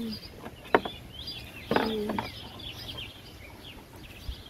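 Small birds chirping in the surrounding trees, with a sharp click about a second in and a short, low, steady-pitched sound around two seconds in.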